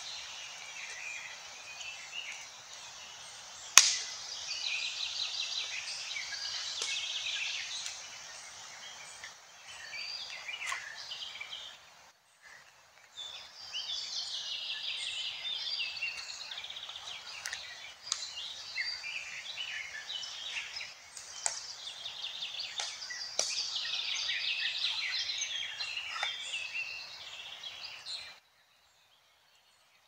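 Birds singing in a busy chorus of chirps and trills over a steady hiss, with a few sharp clicks, one loud about four seconds in. The sound drops out briefly near the middle and stops near the end.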